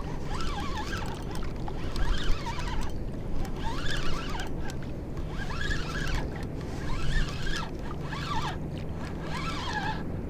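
A spinning reel being cranked under load as a hooked fluke is reeled in, a rising-and-falling whir about once a second with each turn of the handle. Steady wind and water noise lies underneath.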